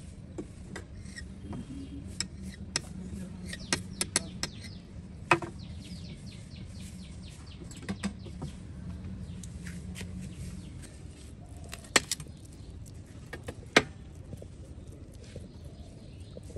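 Scattered sharp taps and clicks of a knife and hands working stacked spring roll wrappers on a hard worktop, over a low steady hum that fades about two-thirds of the way in.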